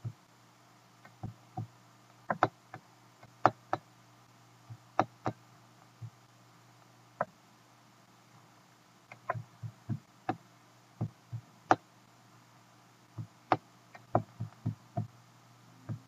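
Irregular sharp clicks of a computer mouse, single or in quick runs of two or three, over a faint steady hum.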